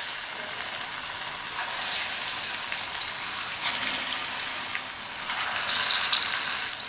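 Moong dal and potato pakoda batter deep-frying in hot oil, just dropped in: a steady sizzle with crackle that swells about two seconds in and again around five to six seconds in.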